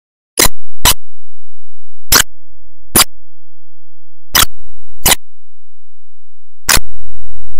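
A series of about eight sharp clicks at uneven intervals, with a faint low hum under two of the gaps.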